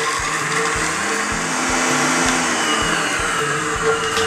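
High-speed countertop blender running steadily, grinding raw walnuts into flour.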